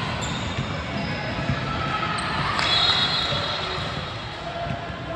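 Basketball dribbling on an indoor court floor, a run of repeated thumps, with a short high squeak a little past halfway.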